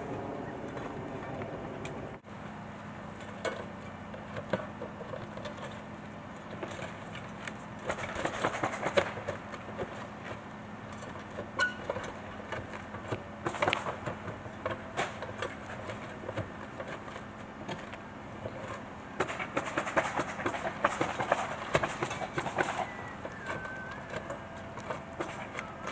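Roofing work: bursts of scraping, clatter and sharp knocks, three or so clusters of them, over a steady low hum.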